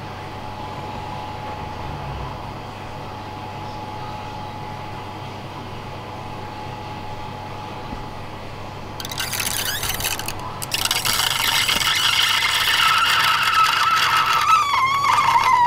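Wort pump running with a steady hum while it drains the kettle. About nine seconds in, the kettle outlet starts sucking air with the last of the wort: a loud slurping gurgle with a wavering whistle that grows louder toward the end.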